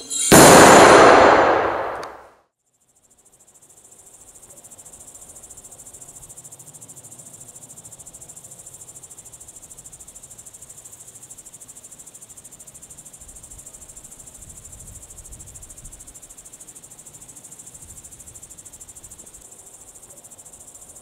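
A loud, sudden crash that dies away over about two seconds, then crickets chirring steadily in a continuous high, pulsing trill.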